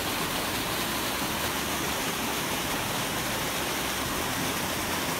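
Small waterfall pouring into a river pool: a steady, even rush of falling water.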